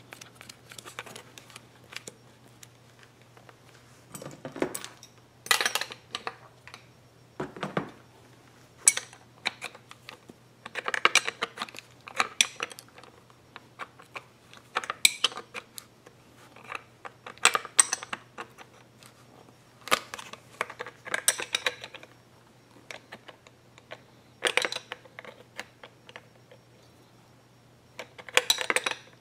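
Brass hose barb being screwed onto a fuel fitting through a plastic generator cover panel, first by hand and then with a small open-end wrench: irregular clusters of clicks and rattles of metal and plastic parts being handled and turned.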